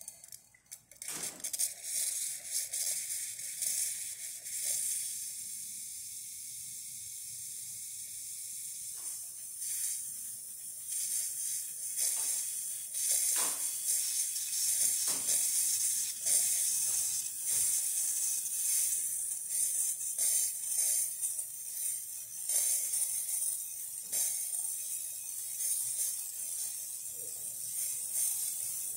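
Gaggia Classic Evo Pro steam wand hissing steadily as it is opened and run, with irregular sputtering crackles through the hiss as the wand heats up.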